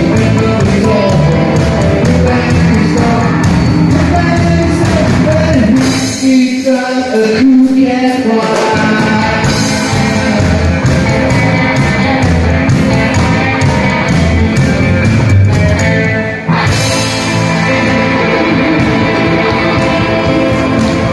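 Live rockabilly band playing rock'n'roll: upright double bass, electric guitars and drums, with a singing voice. About six seconds in the bass and drums stop for roughly two seconds, then the full band comes back in.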